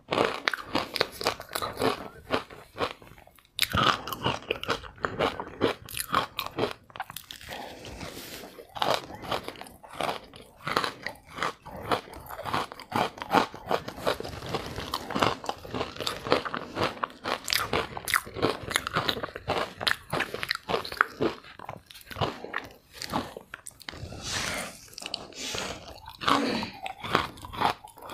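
Crunching and chewing of green-coloured freezer ice, close to a clip-on microphone: a rapid, continuous run of crisp bites and crunches, with a short break about three and a half seconds in.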